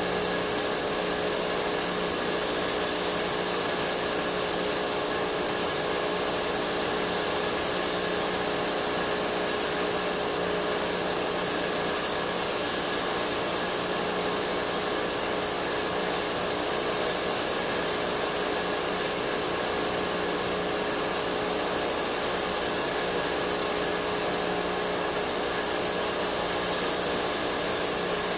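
Steady rushing hiss of compressed air, with a constant hum under it, from spray-painting a car body with an air-fed paint spray gun.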